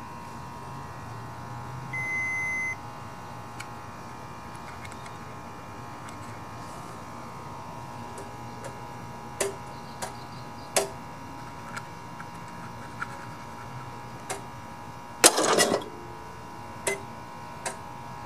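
Digital multimeter's continuity beep: one steady high beep of under a second about two seconds in, the meter's signal of a closed circuit between its test probes on the mower's magneto and safety-switch wiring. After it come scattered light clicks of the probes and wire connectors being handled, the loudest cluster near the end.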